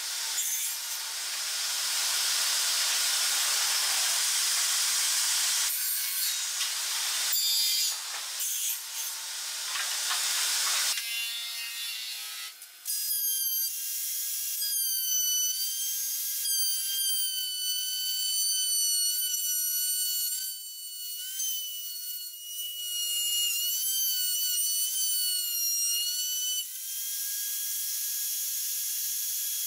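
A spindle moulder cuts a curved wooden piece with a loud, hissing rasp, broken by a few short pauses. Then a router mounted upside down under a bench runs with a high, steady whine whose pitch dips slightly now and then as it cuts along a curved edge.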